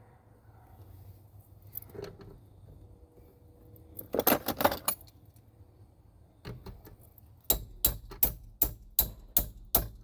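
Metal hand tools jangling and clinking, then a run of about eight sharp, evenly spaced clicks near the end.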